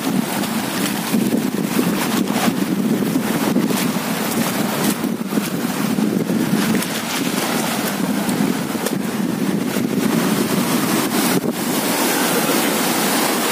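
Steady wind buffeting the microphone over the wash of sea waves against shore rocks, with scattered brief knocks and crackles.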